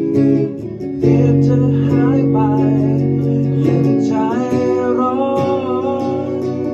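A rock band playing live: electric guitars, bass and drums with cymbal hits. A male voice sings a melodic line over it from about four seconds in.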